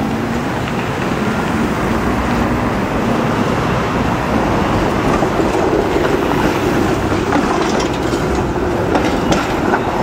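Steady, dense city traffic and road noise heard from a tricycle riding on downtown streets, with a few sharp clicks near the end.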